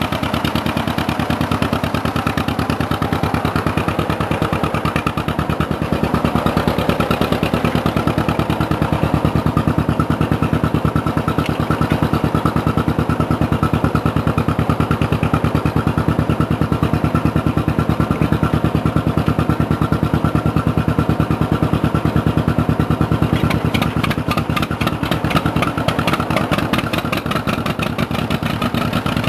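John Deere two-cylinder tractor engine running steadily with an even, rapid firing beat; about three-quarters of the way through, the beat turns sharper and more clattery.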